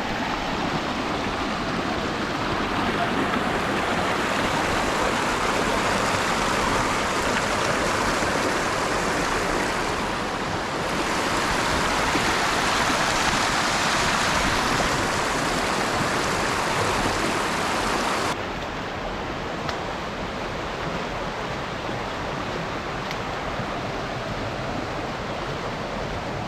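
Rushing water of a fast-flowing river, a steady hiss with no let-up. The sound drops suddenly to a softer level about eighteen seconds in.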